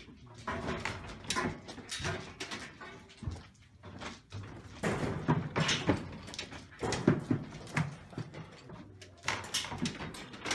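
Irregular clattering and knocking of metal sheep-handling gear as stock move about, with animal noises mixed in.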